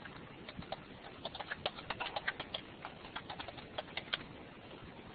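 Faint, irregular clicking of computer keyboard keys, several keystrokes a second, stopping a little after four seconds in.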